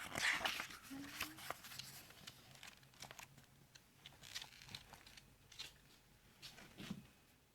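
Paper pages of a book rustling and crinkling as they are handled and turned. There is a loud rustle at the start, then scattered lighter rustles and taps.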